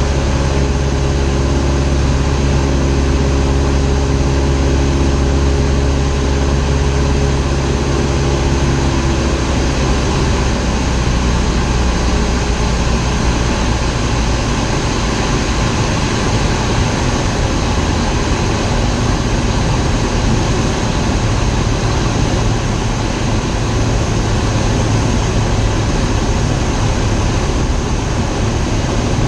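Light propeller aircraft engine droning under heavy rushing wind and air noise during a landing approach. About ten seconds in, the engine's steady drone drops away and mostly rushing air noise is left.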